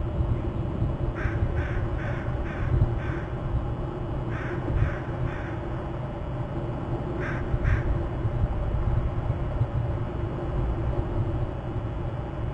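A crow cawing in short runs: about five caws, then four, then two, over a steady low rumble.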